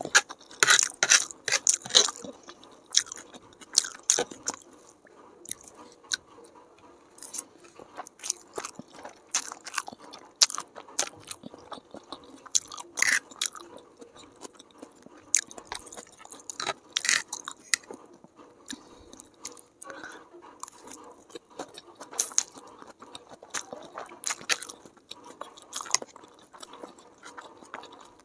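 Close-miked chewing of a mouthful of chow mein noodles: irregular wet mouth clicks and smacks, busiest in the first few seconds and sparser after.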